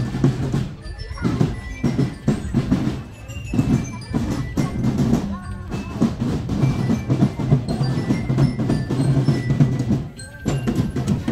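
Marching drum band playing: drums beating, with high ringing glockenspiel notes over them.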